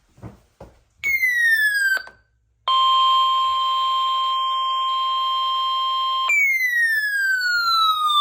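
Weather radio alert tones: a short falling tone sweep about a second in, then a steady high tone for about three and a half seconds, then a longer falling sweep that runs past the end. The steady tone is typical of the weather radio's 1050 Hz warning alarm tone, which comes before a new warning message.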